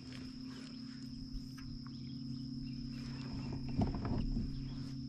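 Steady high-pitched insect drone over a low steady hum, with a brief louder rustle about four seconds in.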